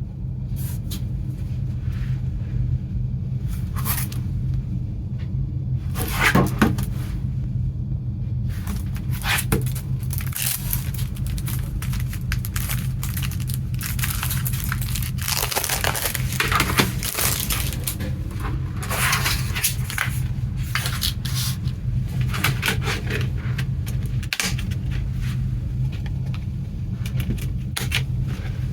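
Hands unwrapping and handling a CD package: plastic wrapping crinkling and tearing and the case scraping, in irregular bursts over a steady low hum.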